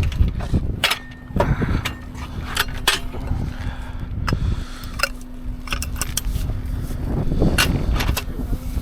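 Tools and metal gear clinking and knocking in irregular clatters while someone rummages for a car jack, over a steady low rumble.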